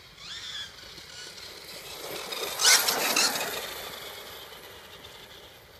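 Carson radio-controlled car driving fast: a high motor whine rising as it accelerates, then a rush of motor and tyre noise that peaks as it passes about three seconds in and fades as it drives away.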